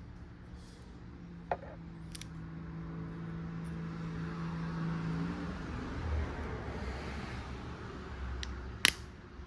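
A motor vehicle running past, its engine hum and road noise swelling and then fading, with two sharp clicks, the louder one near the end.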